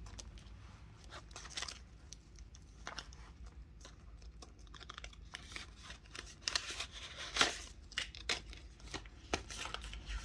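Clear plastic envelopes and pages of a ring budget binder crinkling and rustling as they are handled, with scattered light clicks and taps, the sharpest about seven seconds in.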